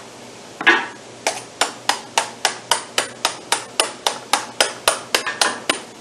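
Hammer tapping on the metal rivet lacing of a round-baler belt splice: one sharp strike, then a steady run of about eighteen quick taps at some four a second.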